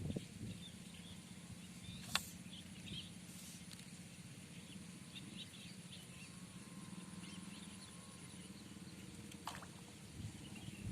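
Quiet outdoor ambience with scattered faint bird chirps over a steady low hum, broken by two sharp clicks, one about two seconds in and one near the end.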